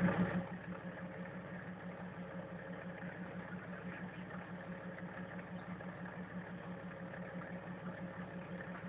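Toyota Hilux pickup's engine idling steadily with a low, evenly pulsing hum, after a brief louder moment at the very start.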